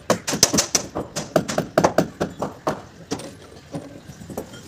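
Rapid, irregular knocks and clatter from roof-centring work, such as timber and metal shuttering being hammered and handled. The knocks are densest in the first three seconds and thin out after that.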